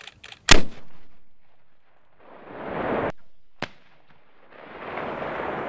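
An AT4 84 mm recoilless anti-tank launcher firing: a few light clicks, then one very loud sharp blast about half a second in with a rushing tail. A fainter sharp crack follows a few seconds later, then a long rushing rumble, as the warhead strikes downrange.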